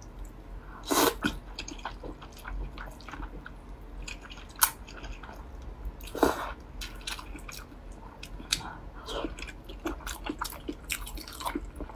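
Close-miked eating of cold noodles: wet chewing with many small mouth clicks and smacks, and two louder slurps of noodles, about a second in and about six seconds in.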